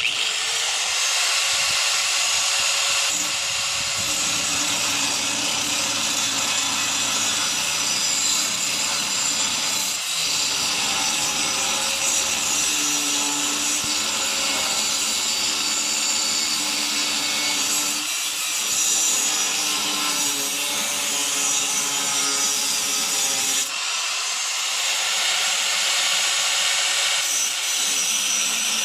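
Angle grinder with a cutoff wheel or sanding disc working steel: a continuous harsh grinding hiss over the motor's steady whine, which spins up at the start. About three-quarters of the way through, the sound breaks and the whine rises again as the tool takes up again.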